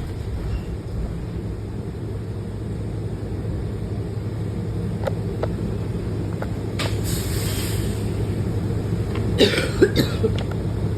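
Steady low rumble of the bus running, with a short hiss partway through and a person coughing two or three times near the end.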